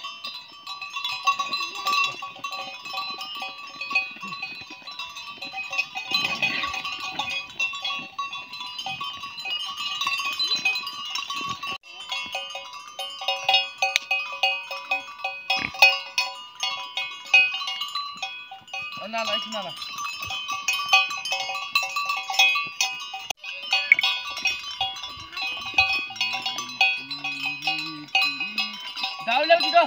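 A flock of sheep with many small bells clinking and ringing together without pause, and a sheep bleating now and then.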